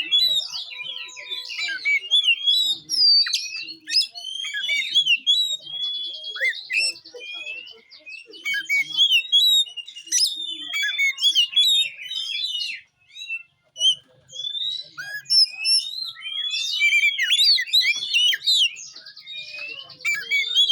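Oriental magpie-robin (kacer) singing a fast, varied song of whistles and chirps, with buzzy rattling trills about six seconds in and again near the end, and a brief pause a little past the middle.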